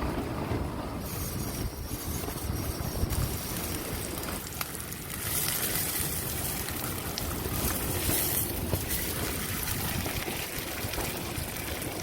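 Strong typhoon wind gusting against the microphone: a buffeting low rumble under a noisy hiss that grows louder about five seconds in.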